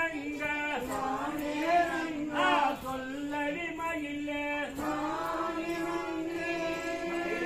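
Voices singing a Valli Kummi folk dance song, the Tamil kummi style sung while dancing in a circle, with long held notes that slide up and down between phrases.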